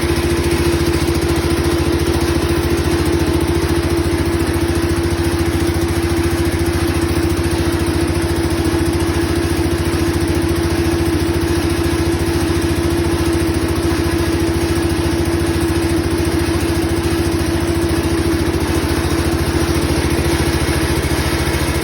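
Case 210 garden tractor engine running steadily at a constant speed, with an even, unchanging drone.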